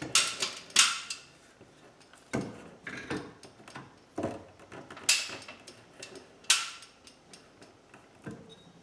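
Sharp metallic clanks and clicks at irregular intervals from handling rigging gear and tools: two loud ones in the first second, two more at about five and six and a half seconds, with softer knocks between.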